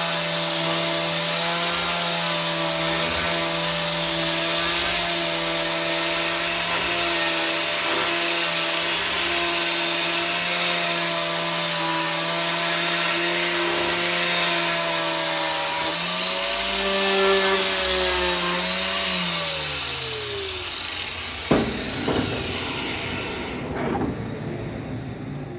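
Electric sander running steadily on wood, a motor hum over a hiss. About 16 seconds in its pitch rises briefly, then it winds down and stops, followed by a couple of light knocks.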